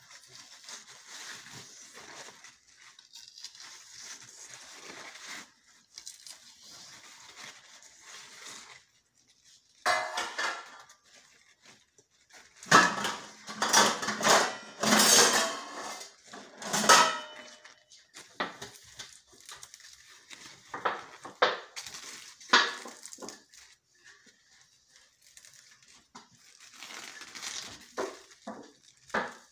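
Fresh pumpkin stems and leaves being handled: a soft rustle of leaves at first, then crisp snaps and cracks as the hollow stems are broken and their stringy skin is stripped off. The snaps come thickest and loudest a little before the middle.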